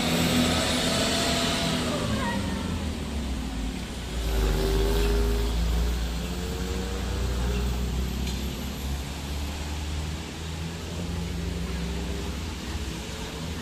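Diesel engines of decorated mountain minibuses pulling around and up a hairpin bend, their pitch rising and falling as they work. The engines are loudest about four to five seconds in, with a steady hiss of tyres on the wet road underneath.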